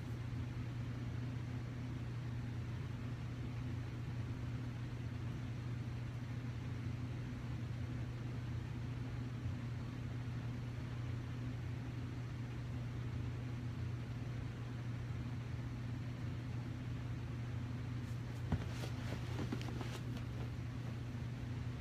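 A steady low hum with a soft hiss over it. Near the end there is brief rustling and one sharp knock as a person shifts and gets up from a couch.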